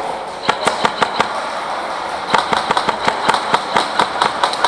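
Airsoft guns firing: a quick string of sharp shots about half a second in, then rapid shots several a second from about two seconds in.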